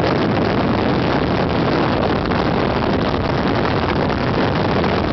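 A moving car: a loud, steady rush of wind and road noise on the microphone.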